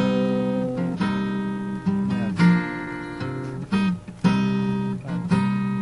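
Acoustic guitar strummed in chords, with a fresh strum roughly every second: an instrumental passage of a live song.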